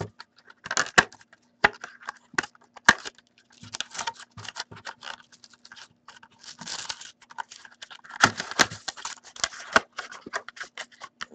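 A small cardboard hockey card box and its plastic packaging being handled and opened by hand: an irregular scatter of crinkles, scrapes and light clicks of card stock and plastic.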